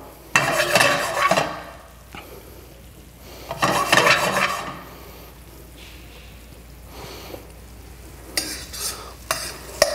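A metal spoon stirring a thick, sticky date and fig compote in a stainless steel sauté pan, scraping the pan in two stretches over a light simmering sizzle as the sauce reduces. A few sharp clinks of the spoon against the pan near the end.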